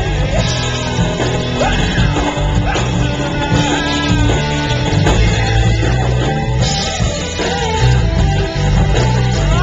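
Loud rock-style music with singing over a heavy bass beat, picked up through a small camcorder's microphone.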